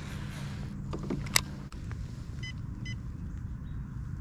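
Baitcasting reel cranked on a crankbait retrieve, a steady mechanical whirr that stops about a second and a half in, with a sharp click just before it stops and two short high beeps near the end.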